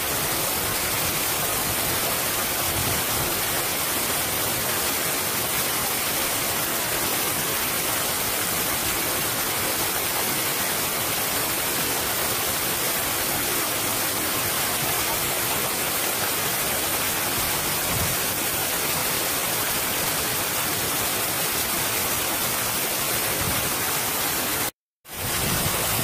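Fudō Falls, a tall waterfall sliding down a broad rock slab, rushing steadily with a heavy flow of water. The sound cuts out for a moment near the end.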